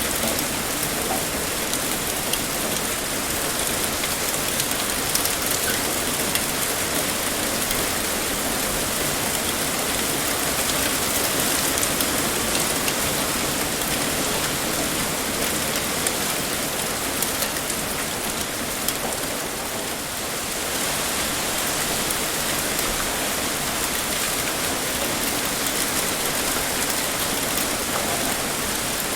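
Heavy rain pouring steadily, a dense hiss of drops striking a surface with fine individual patters.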